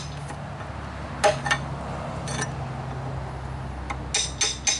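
Hammer striking a 2-inch chisel, chopping out a notch in a pressure-treated yellow pine beam: sharp metallic taps, two about a second in, another around halfway, then a quick run of four near the end.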